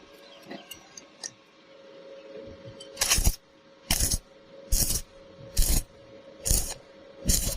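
Metal striking metal in a steady rhythm, about one hit a second, starting about three seconds in after a few light clicks, over a faint steady hum.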